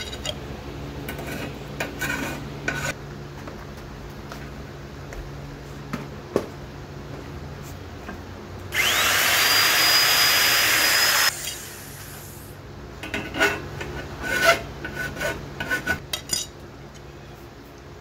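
A handheld electric power tool, held against a freshly welded steel step, spins up with a rising whine and runs loud for about two and a half seconds from about nine seconds in, then stops abruptly. Scraping and knocking on the metal come before and after it, over the steady hum of a fan.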